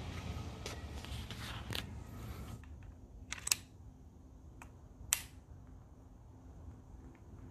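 Small sharp clicks of a brass quick-connect pressure-washer nozzle tip being handled at the spray gun's coupler: two clear clicks about a second and a half apart. Before them, a low rumbling hiss stops abruptly about two and a half seconds in.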